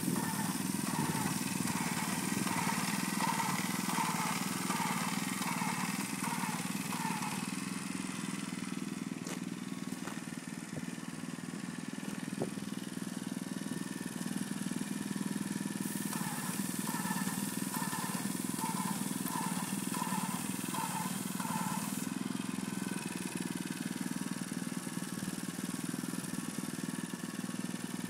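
Small gasoline engine of a walk-behind airless line-striping machine running steadily. For the first several seconds, and again for about six seconds past the middle, a hiss and a rhythmic pulsing of about one and a half strokes a second come in over it.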